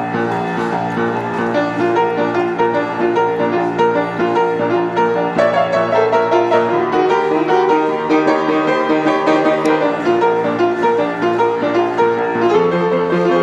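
Upright piano played in boogie-woogie style in B flat, notes sounding without a break, with a change in the bass line near the end.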